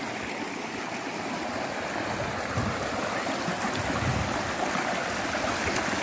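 Shallow stream water running and splashing over mossy rocks in a small cascade: a steady rushing noise that grows a little louder after about two seconds.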